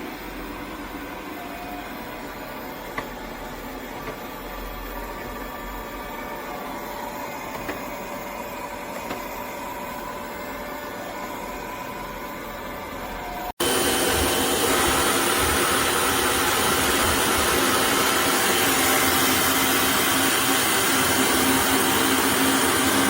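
Robot vacuum cleaner running with a steady whir and a few faint ticks. About thirteen and a half seconds in, the sound cuts abruptly to a louder, steady motor noise.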